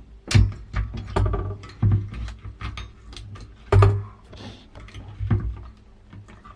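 Plastic push-pin clips of a CPU heatsink being twisted and worked loose on a motherboard: a string of sharp clicks and knocks, the loudest a second or two apart, over a low steady hum.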